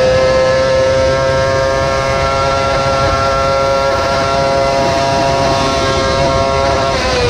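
Kart-cross's motorcycle engine running at high, nearly steady revs on a hillclimb run, heard from onboard. Its note drops right at the end as the revs fall.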